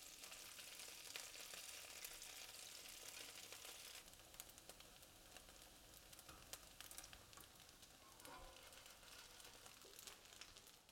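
Faint sizzling of cubes of radish cake pan-frying in oil, with scattered small crackles; the sizzle drops lower about four seconds in.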